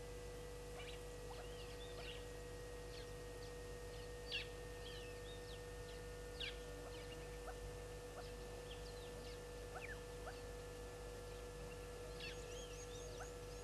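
Faint, scattered short bird calls and chirps, over a steady electrical hum from the camera's audio.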